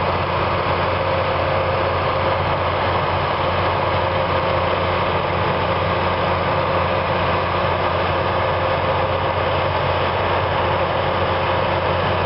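Loram RG400 Series rail grinder's diesel engines idling steadily, an even drone with a steady hum.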